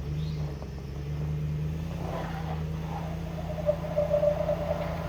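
Off-road SUV engine running steadily at low revs with a low drone. A higher-pitched whine joins it about two seconds in and is strongest around four seconds in.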